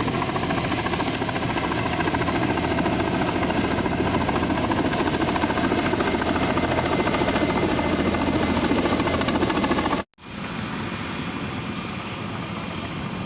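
Kamov helicopter running steadily, with a fast rotor chop and a thin high whine over it. About ten seconds in, the sound cuts out for an instant and comes back a little quieter.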